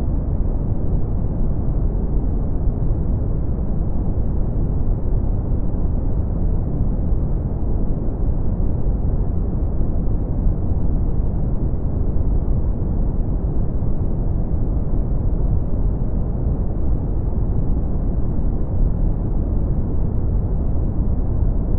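Brown noise: a steady, deep noise, heaviest in the bass and with no high hiss, unchanging throughout.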